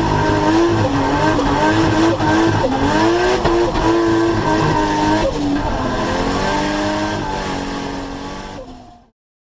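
Tuned car driven hard: engine running at high revs with a wavering squeal, fading out and stopping shortly before the end.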